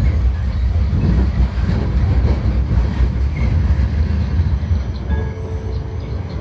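Vienna tram running along its street track: a steady low rumble of the motor and wheels on the rails.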